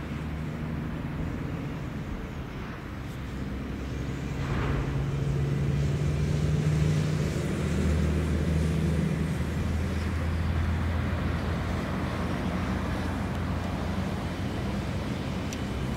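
Low, steady engine hum with a few held low tones. It swells about four seconds in and eases off again after about ten seconds.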